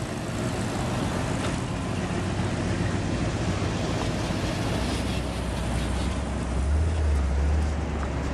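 A vehicle engine running with a low rumble under outdoor crowd and street noise. It grows louder about five seconds in and is loudest near the end.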